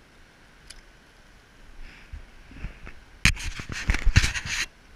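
Irregular knocks and rustling close to the microphone: a few scattered taps about two seconds in, then a dense, loud clatter for over a second near the end.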